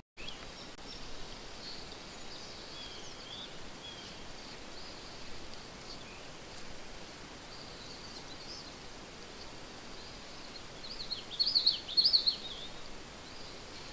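Outdoor night ambience: a steady hiss with faint, high, wavering chirps, and a short flurry of louder high chirps near the end.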